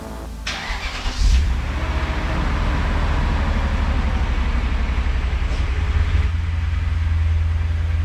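BMW E39 M5's 4.9-litre S62 V8 starting: the starter cranks about half a second in, the engine catches about a second in and settles into a steady idle.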